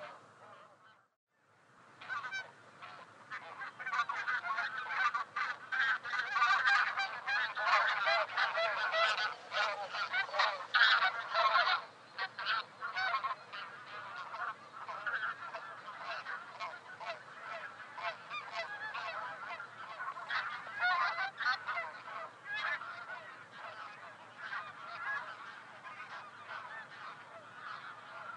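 A flock of taiga bean geese calling, many honking calls overlapping. The calling starts after a short pause about two seconds in, is densest and loudest for about the next ten seconds, then carries on a little quieter.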